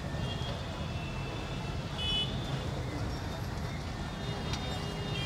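Steady rumble of city street traffic, with a brief high-pitched tone about two seconds in.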